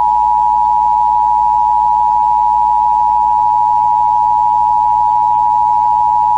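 Emergency Alert System attention signal: a loud, steady two-tone alert of two close pitches sounded together, held without a break.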